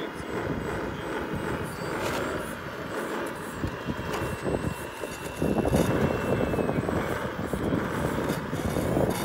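Radio-controlled model wheel loader shoving a concrete slab over gravel and dirt, making a crunching, scraping grind that gets louder about halfway through. A faint thin motor whine sits underneath in the middle.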